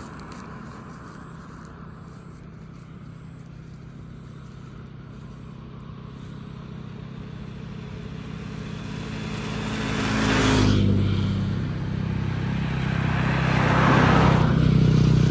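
Motor vehicle engine running with a steady low hum that grows louder over the second half, with two loud swells of noise about ten and fourteen seconds in.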